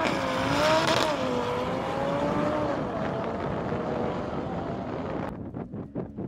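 Two race cars accelerating hard away down a runway in a drag race. Their engine note sinks slowly and fades as they recede. About five seconds in the sound cuts abruptly to wind buffeting the microphone.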